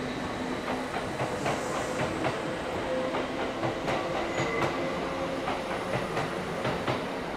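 Kintetsu electric train moving along the station platform: a quick, irregular run of clicks from the wheels over the rail joints, over a held humming tone from the running gear.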